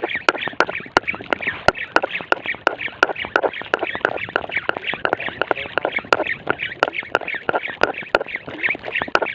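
Spinning reel, a Loomis Franklin 4000, cranked quickly during jigging: a rapid, regular clicking and squeaking at about three to four strokes a second.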